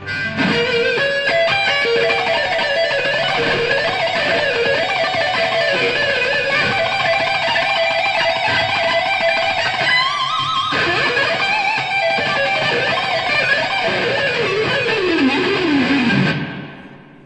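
Lead electric guitar on a cream-white Stratocaster-style guitar playing a fast solo of rapid note runs, with a quick climb about ten seconds in and a long falling run near the end before it fades out.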